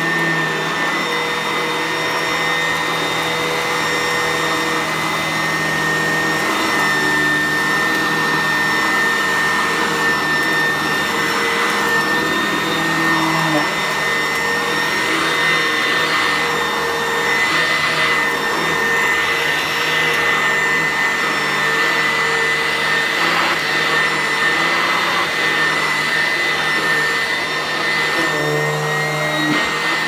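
Sanitaire commercial upright vacuum cleaner running steadily while pushed over carpet, its motor holding a steady high whine.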